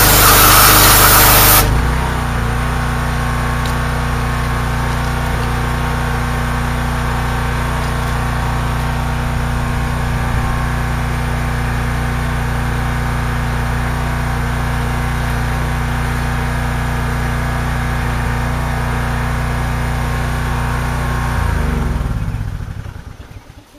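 Pressure washer spray hissing against the steel pickup-bed floor frame for under two seconds, then the spray stops and the pressure washer's small gas engine runs on steadily, unloaded. Near the end the engine is shut off and winds down to a stop.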